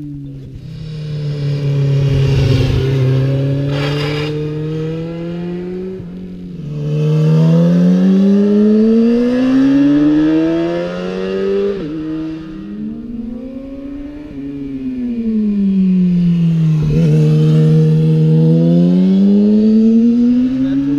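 Sport motorcycles riding through hairpin bends one after another, each engine's pitch rising under acceleration and falling as it slows, with a few sudden pitch drops.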